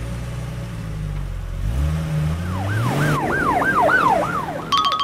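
A vehicle engine running, its pitch rising about two seconds in as it speeds up, then an emergency siren wailing in quick rising-and-falling sweeps, about three a second. A short chime starts just before the end.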